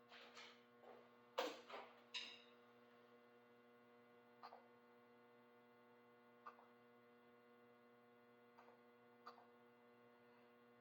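Near silence: a steady low electrical mains hum with a few faint clicks and knocks, the loudest in the first couple of seconds.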